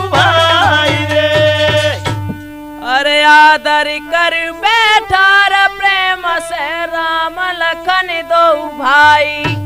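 Holi folk song music: dholak drumming with a melody over a steady drone. The drumming drops out about two seconds in, leaving the bending melodic line, and comes back near the end.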